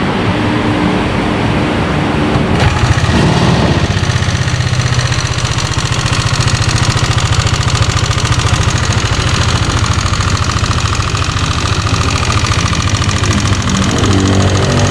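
Yamaha Aerox 155 single-cylinder scooter engine running, picking up briefly about three seconds in, then idling steadily with a fast, even ticking clatter. This is the loud ticking the mechanic traced to a worn, loose rocker arm.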